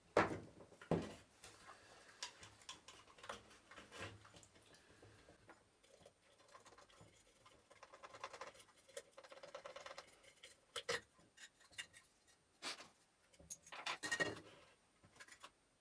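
Scattered faint clicks and light knocks of small metal parts and tools being handled while a vacuum cleaner motor is taken apart, with a few louder taps near the end.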